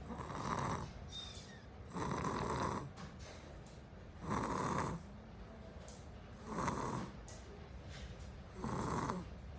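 A young child snoring in sleep: five snores in an even rhythm about two seconds apart, each lasting about half a second.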